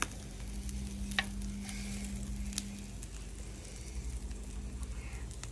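Pork and chicken sizzling on the grate of a charcoal kettle grill, with scattered sharp clicks. A low steady hum stops about halfway through.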